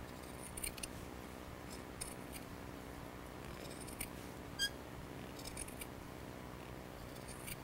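Upholstery shears snipping through jute carpet padding: about eight quiet, short cuts at irregular intervals, the sharpest one about four and a half seconds in with a brief ring.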